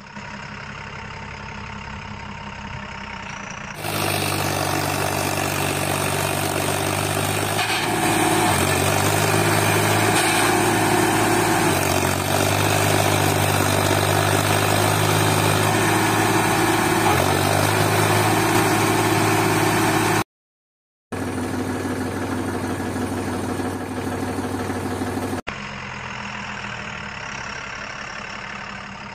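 A steady engine-like drone with a low hum that shifts pitch in abrupt steps several times. It breaks off into a moment of dead silence about two-thirds of the way through.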